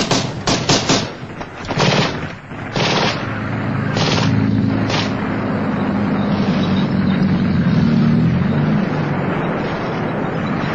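Battle sound effects: a rapid run of gunshots and blasts over the first five seconds, then a sustained rumble with a low wavering drone that fades near the end.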